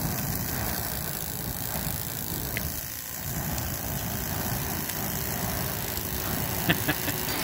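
Handheld flamethrower spraying a continuous jet of burning fuel, a steady rushing noise that eases briefly about three seconds in. A sharp snap comes near the end.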